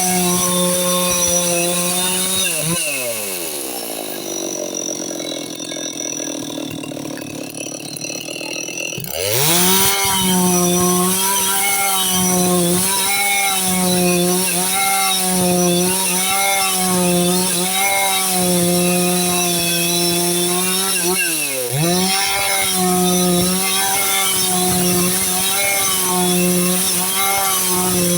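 Stihl 660 two-stroke chainsaw ripping boards out of a log. Its engine drops to a lower speed for about six seconds near the start, then revs sharply back to full throttle and cuts steadily, pitch wavering with the load. It dips briefly again and recovers about 21 seconds in.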